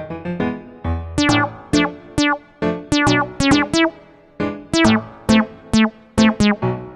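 Background music: a bouncy keyboard tune of short, quickly fading notes, some repeated, over a bass line.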